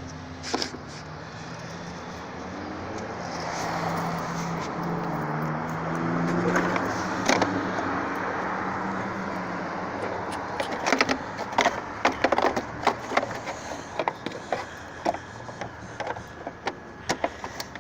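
1999 Land Rover Discovery 2 being cranked on the starter for several seconds, rising in pitch but not catching: the engine won't start, which the owner puts down to no spark. This is followed by a run of irregular sharp clicks and rattles.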